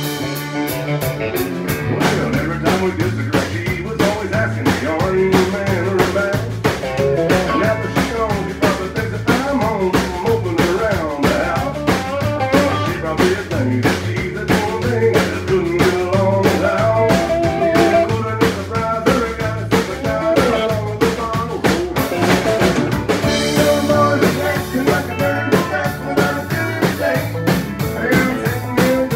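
Live country band playing a southern-rock-style number: a drum kit keeping a steady beat under electric bass, acoustic guitar and fiddle, with a wavering lead melody running through the middle.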